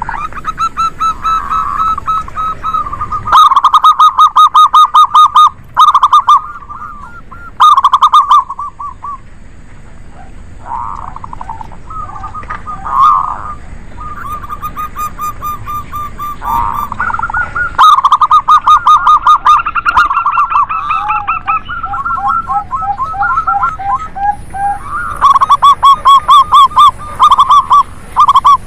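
Zebra doves (local perkutut), male and female, cooing busily in overlapping bouts: fast runs of short, clipped coos, at times two birds at once, with a quieter lull near the middle.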